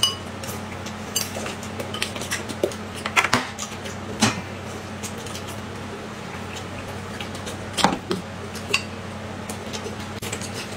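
Spoons clinking against glass cups and dishes: scattered sharp clinks, the loudest about three, four and eight seconds in, over a steady low hum.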